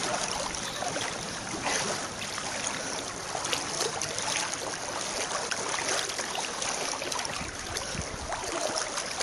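Floodwater sloshing and swishing steadily around the legs of people wading through waist-deep water.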